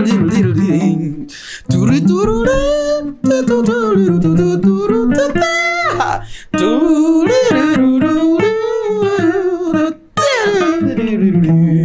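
Guitar music: a melody of sliding notes with vibrato, played in phrases with short breaks between them.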